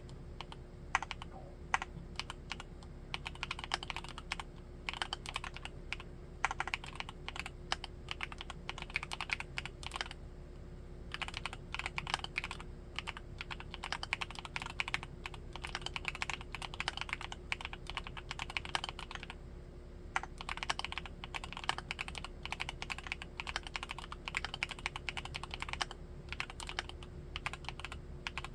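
Continuous typing on a Createkeebs Luminkey75 mechanical keyboard with Gateron Baby Raccoon linear switches: a quick run of keystroke clacks, pausing briefly twice.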